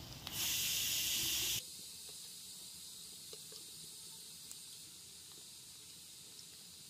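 Baby-jackfruit koftas deep-frying in hot oil in a karai. A loud sizzling hiss lasts about a second and a half and cuts off abruptly, then a quieter steady sizzle follows with a few faint pops.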